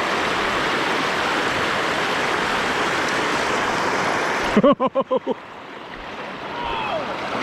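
Steady hiss of rushing water that cuts off abruptly about four and a half seconds in. A quick run of about five short chirps follows, then quieter flowing water.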